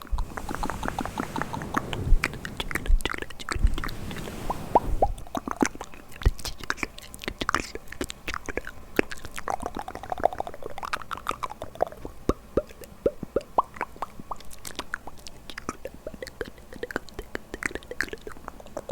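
ASMR mouth sounds: a quick, uneven run of wet clicks, pops and smacks. They are louder and fuller for the first five seconds or so, then lighter and more spaced out.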